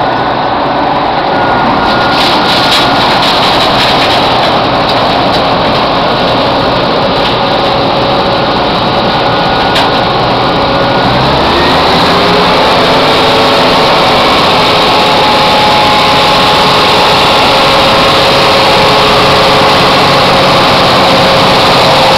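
Asphalt milling machine at work: a loud, steady mechanical din from its engine and machinery, with a few sharp clicks a few seconds in and a rise in pitch about halfway through.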